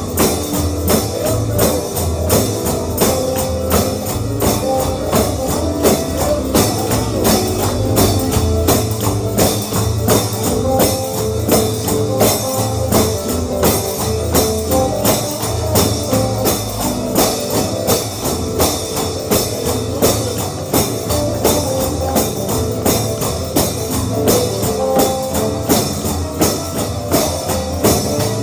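Upbeat holiness gospel shouting music, with a tambourine keeping a fast, even beat over the band.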